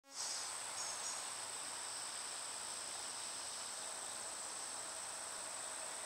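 Chorus of insects buzzing steadily at a high pitch.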